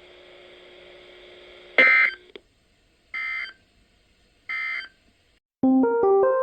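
EAS end-of-message data bursts on a weather radio broadcast: three short bursts of digital warbling tone about a second and a half apart, marking the end of the warning, after a faint steady hum. Piano-like music starts near the end.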